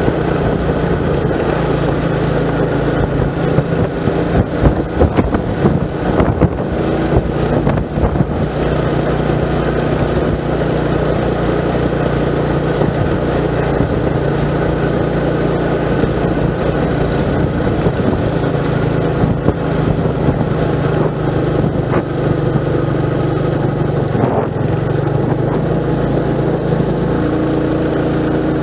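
Motorcycle engine running steadily under way, with a spell of clattering knocks about four to eight seconds in.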